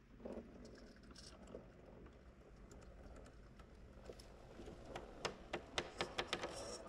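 Redcat Ascent RC rock crawler climbing over rocks: its tyres and chassis knock and click against the rock, in a quick run of sharp clicks over the last couple of seconds.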